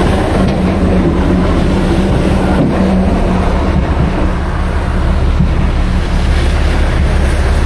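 Steady wind buffeting the microphone, a loud low rumble with a steady hum beneath it.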